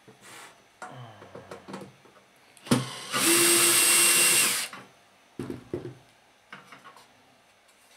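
Cordless drill-driver running for about two seconds as it backs a screw out of a microwave oven's sheet-metal cover, followed by a few knocks of the cover being handled.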